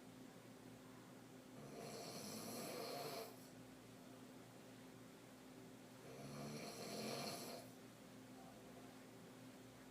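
A woman snoring deeply from the throat, mouth open, while sleeping on her back. There are two long snores, a little over two seconds and just under seven seconds in, each lasting about a second and a half, with quieter breathing between them.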